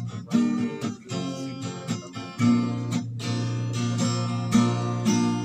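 Acoustic guitar strumming chords.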